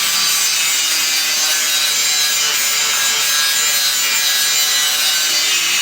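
Steady, unbroken noise from a metalworking tool or process, with most of its energy high up and a few faint steady tones under it.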